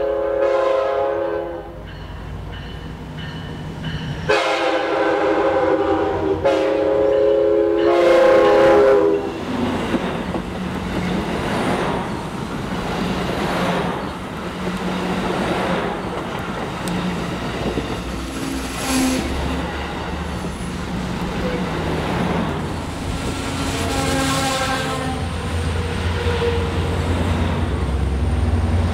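Amtrak Surfliner passenger train's air horn sounding a short blast, then two long blasts close together, and a shorter blast later on. Between and after the blasts the passing train's rumble and wheel-on-rail noise runs steadily, with some clickety-clack.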